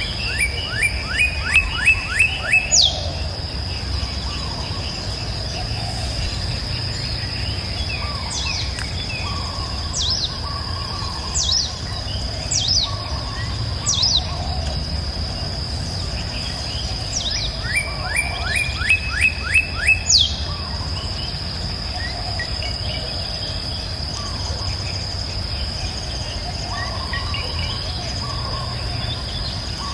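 Birds singing over a steady high insect drone: twice a bird gives a loud phrase of about eight rapid repeated notes, once near the start and again about two-thirds of the way through, with scattered single chirps between.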